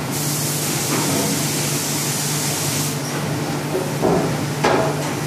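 Hand-held flock applicator hissing steadily as it puts flock powder through the print screen, cutting off suddenly about three seconds in. A steady low machine hum runs underneath, and two brief knocks come near the end.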